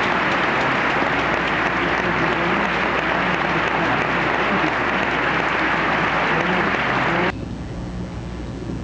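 Concert-hall audience applauding steadily, cut off abruptly about seven seconds in, leaving the quiet of the hall.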